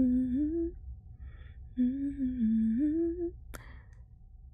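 A woman humming a slow, gentle melody in two phrases, the pitch gliding between held notes. About three and a half seconds in, a single sharp click or knock.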